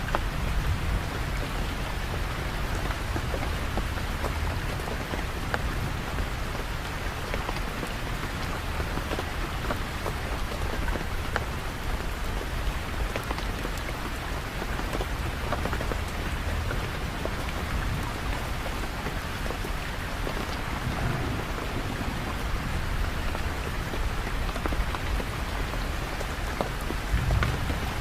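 Steady rain falling and pattering on surfaces, an even dense hiss, with a low rumble underneath that swells briefly near the end.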